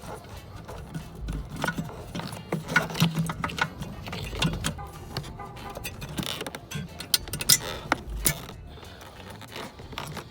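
Irregular clicks, taps and scrapes of plastic and metal as an H4/9003 LED headlight bulb is worked and seated into a 1996 Lexus LS400's headlight housing, over a low steady hum.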